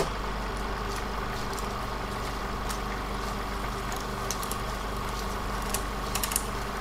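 Steady hum and hiss of worn old film-soundtrack noise, with scattered clicks and crackles.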